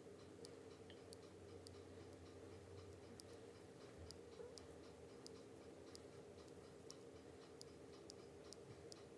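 Faint, sharp clicks of a Polar FT60 heart rate monitor watch's buttons being pressed, about a dozen at irregular intervals, as its settings are stepped through.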